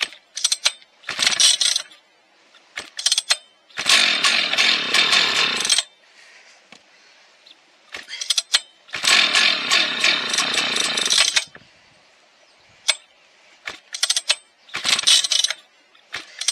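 Rebuilt Husqvarna 1100 two-stroke chainsaw being pull-started over and over. It catches twice and runs for about two seconds each time, then dies. It is slow to run while air is worked out of the fuel line, and the owner suspects the low-speed jet is set rich.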